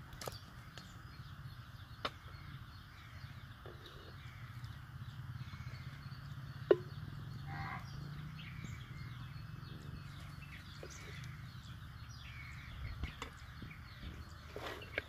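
Outdoor rural ambience: faint bird chirps over a steady low hum, with a few light clicks and one sharp click about halfway through.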